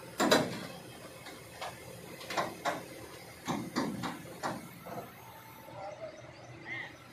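Metal clanks and knocks from a Kobelco crawler excavator working on a lowbed trailer: one sharp, loud clank, then a run of irregular knocks over a low, steady engine rumble.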